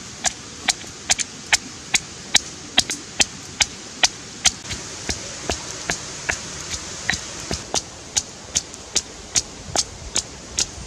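Stone pestle pounding dried red chilies in a stone mortar: a steady run of sharp knocks, about two to three a second.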